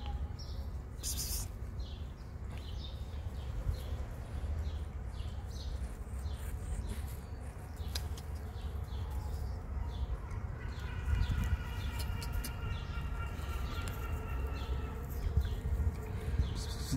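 Outdoor ambience: a steady low rumble with short high chirps repeating about twice a second. From about ten seconds in, a thin, wavering high-pitched tone joins them.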